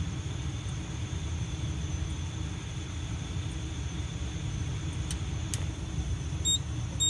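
Steady low rumble of background noise, with a few faint clicks and two very short high beeps near the end; the alarm horn is silent.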